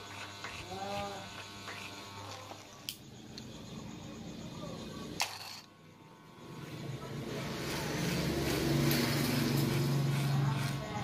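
Electric hair clippers running with a steady buzz as the blade trims around the ear, growing louder about seven seconds in.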